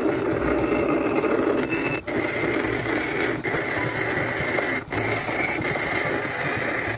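Antique L. H. Olmsted hand-cranked grinder (1906 patent) running: its belt-driven grinding stone spins with a steady whirring grind, broken by a few brief pauses, used here for removing rust by hand.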